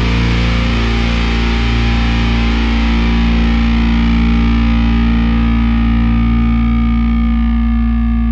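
Background rock music: a distorted electric guitar chord held and ringing, its bright top end slowly dying away.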